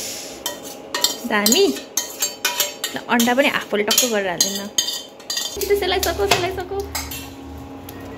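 Metal spoon scraping and clinking against a stainless steel pan as instant noodles are scraped out onto a plate, in quick irregular clicks. About five and a half seconds in the clinking stops and a steady low hum begins, from an induction cooktop running.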